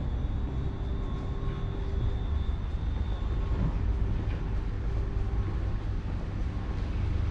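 Steady low rumble of vehicle noise inside a long brick pedestrian underpass, with a faint high whine that stops about three and a half seconds in.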